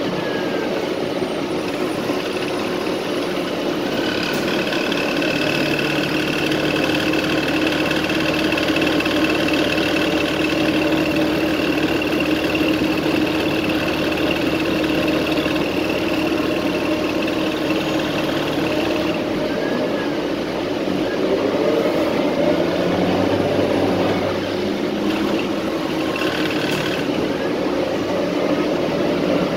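Inside a city transit bus while it rides: engine and drivetrain running under the cabin noise, with a steady high whine for the first two-thirds, then tones that slide up and down in pitch.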